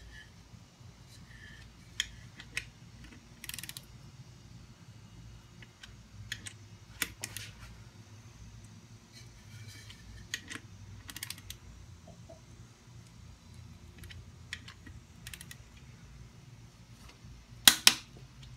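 Click-type torque wrench ratcheting in short runs of clicks as connecting-rod cap bolts are drawn down to 60 ft-lb, over a low steady hum. Near the end a loud, sharp double click: the wrench breaking over at its set torque.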